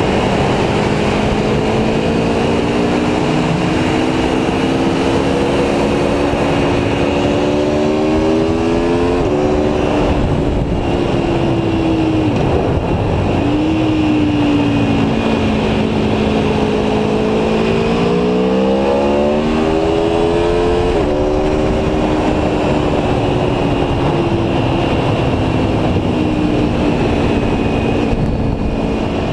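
Aprilia Tuono V4 1100 Factory's 1077 cc V4 engine pulling under way, its pitch climbing slowly and then dropping sharply at an upshift about nine seconds in. It eases off and falls in pitch around twelve seconds, climbs again to another upshift about twenty-one seconds in, and then holds a steady speed. A steady rush of wind and road noise runs under it.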